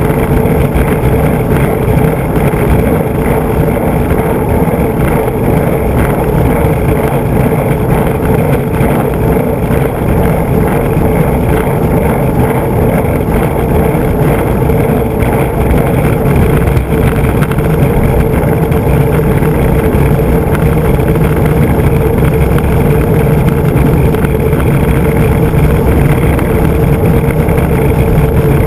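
Large urethane skateboard wheels (3DM) rolling fast on coarse asphalt, picked up by a camera mounted right under the board: a steady, unbroken roar with a constant hum underneath.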